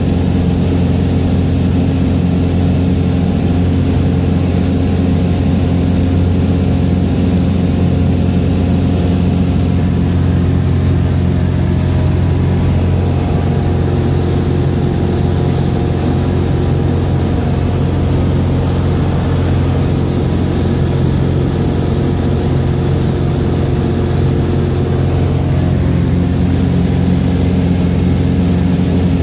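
Sonex light aircraft's piston engine and propeller in cruise, a steady drone heard from inside the cockpit.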